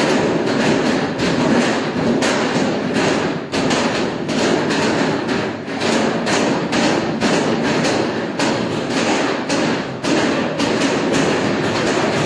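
Hand-pulled noodle dough being swung and slapped down on steel worktables: repeated thuds, a few a second at an irregular pace, over a steady background din.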